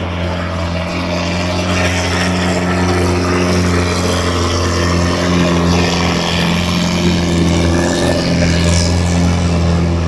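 A boat engine running with a steady low drone that grows slightly louder after the first couple of seconds.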